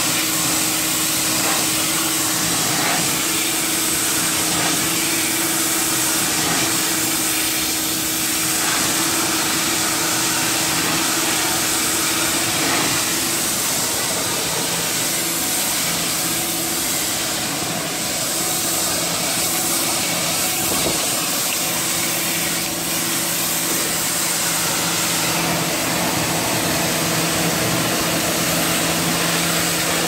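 Electric pressure washer (Ryobi 1600) spraying water across a stripped car's metal floor: a steady hiss of spray over a steady motor hum, with a shop vac running and sucking up the water.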